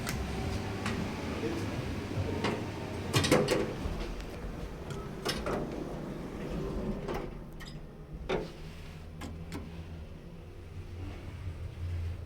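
Toshiba elevator car grinding and knocking irregularly over a low rumble, with a string of sharp knocks and scrapes, the loudest about three seconds in: the car is rubbing against the hoistway.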